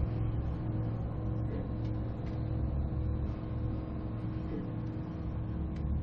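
Elevator car descending: a steady low rumble and hum with faint steady tones above it.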